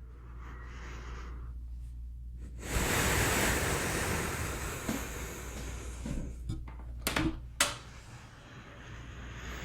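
Slow, calm human breathing close to a microphone: a softer breath, a short pause, then a longer and louder breath starting about three seconds in. Two short clicks come a little after the middle.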